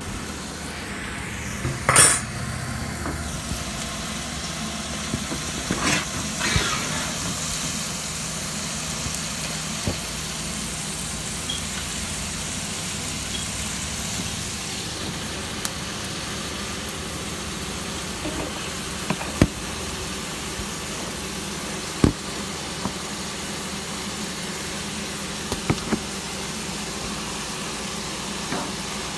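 Ground beef sizzling as it browns in a frying pan, a steady hiss broken by a few sharp clinks.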